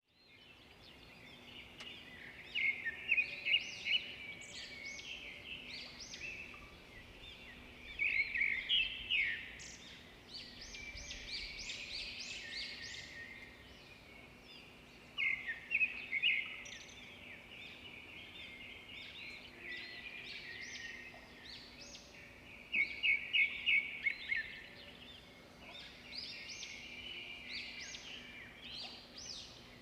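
Songbirds singing, with phrases of quick chirps and trills coming every few seconds over a faint steady hum.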